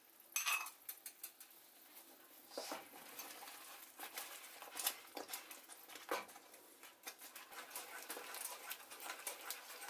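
Wooden spoon stirring thick, glossy cornflour halwa in a nonstick pan as ghee is worked in. Faint, irregular soft clicks and taps, a few of them louder.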